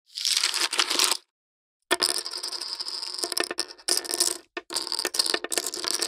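Poker chips clicking and clattering against each other in a run of separate short takes split by brief silences: one of about a second, a longer run of rapid clicks from about two seconds in, and another near the end.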